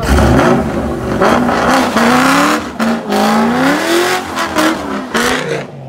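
Car doing a burnout: the engine revs up and down repeatedly over the noise of the rear tires spinning on the pavement. The sound drops off sharply near the end.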